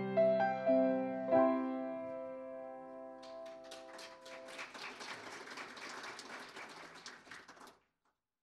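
Piano playing a few notes, then ending on a held chord that fades away. It is followed by a few seconds of crackling noise that cuts off abruptly into silence.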